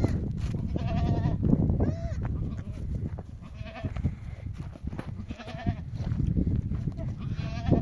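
Sheep bleating: about five short, high, wavering bleats a second or two apart, over a steady low rumble.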